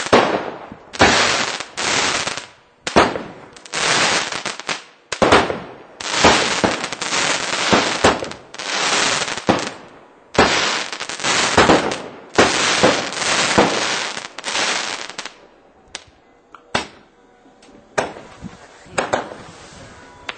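Pyragric consumer fireworks firing: a rapid string of loud bangs and crackling bursts, about one a second. About fifteen seconds in, they thin out to a few single sharp bangs.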